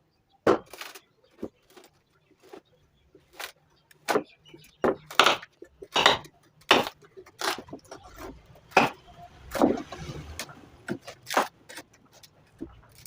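A run of irregular sharp knocks and clacks, as of wood being struck or handled, one or two a second, over a faint low hum.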